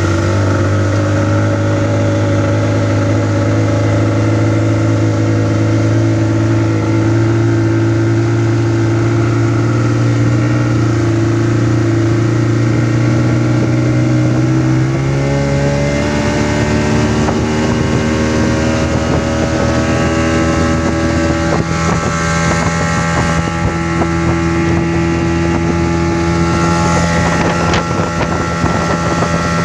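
Small motorboat's engine running steadily at low speed, then speeding up about halfway through. Water rushing and wind on the microphone grow in the second half.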